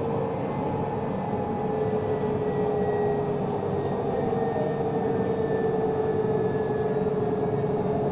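Alstom Citadis tram running, heard from inside the passenger saloon: a steady traction-motor whine that slowly falls in pitch over the rumble of the wheels on the rails.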